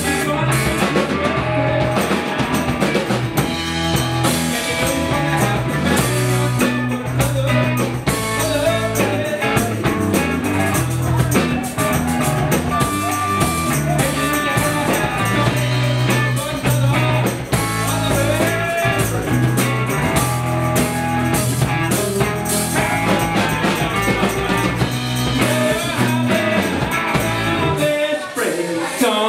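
Live blues-rock band playing: electric guitar, bass guitar and drum kit, with a male singer.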